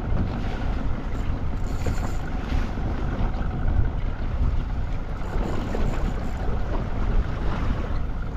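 Wind buffeting the microphone over steady sea and boat noise, with waves washing against the hull.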